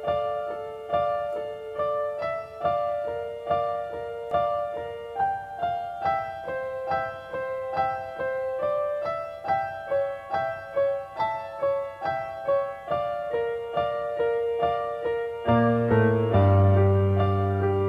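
Piano music: a melody of single notes struck about twice a second, each fading away, and low bass chords come in near the end, making it louder.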